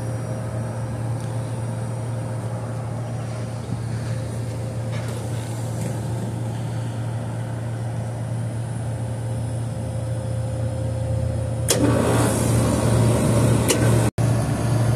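Trane Symbio 700 rooftop HVAC unit running in cooling mode: a steady low mechanical hum from its compressors and condenser fan. About twelve seconds in it turns suddenly louder and rougher.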